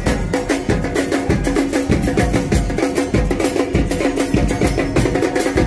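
Music with a steady percussion beat.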